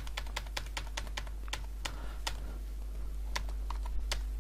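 Computer keyboard keys tapped in a quick run of clicks for about two seconds, then a few more spaced-out taps, over a steady low electrical hum.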